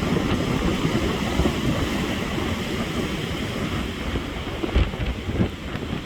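Stormy sea surf breaking on the shore in a strong, steady wind, with the wind buffeting the microphone in low rumbling gusts.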